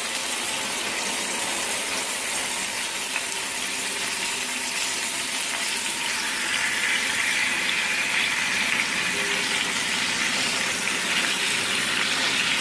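Marinated chicken breast sizzling as it fries in hot vegetable oil in a pan, a steady hiss that grows a little louder and brighter about halfway through.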